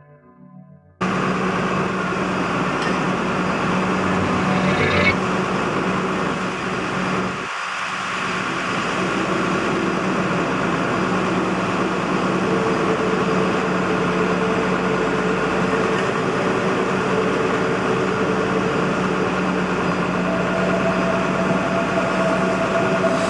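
Massenza M.I.45 hydraulic drilling rig running steadily, its deck diesel engine giving a constant drone that starts suddenly about a second in. About halfway through, a steady hydraulic whine joins it while the rig's winch hoists a drill pipe.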